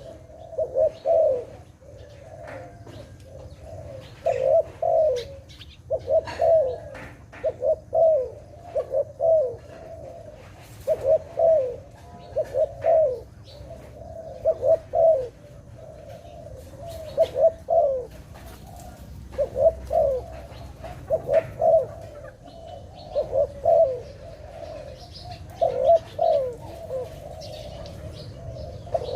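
Zebra dove (Malay dove) cooing: short clusters of rapid, pulsing coos, repeated every second or two throughout. Faint chirps from other small birds sound behind it.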